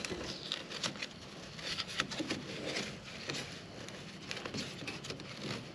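Kayak tie-down strap webbing rubbing and rustling as it is wound around a cleat on the truck rack, with irregular small taps and scrapes that thin out after about three seconds.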